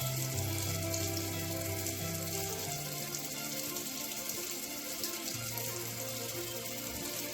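Tap water running steadily into a sink, with background music underneath.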